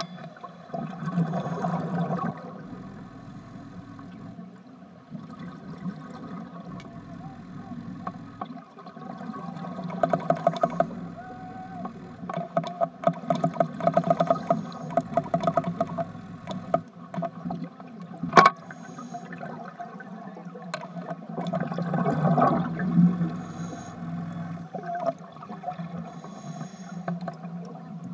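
Underwater sound of scuba breathing: bubbling, gurgling surges of exhaled air from a regulator every several seconds over a steady low hum. One sharp click about eighteen seconds in.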